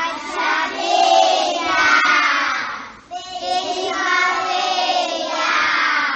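A group of children singing together in two phrases of about three seconds each, with a short break about three seconds in.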